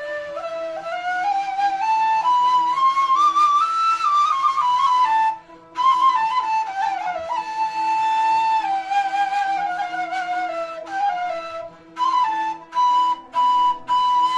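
End-blown flute playing a solo melodic interlude, climbing step by step to a high note about four seconds in and then winding back down, with short breaks for breath about five and twelve seconds in. A steady held note sounds underneath.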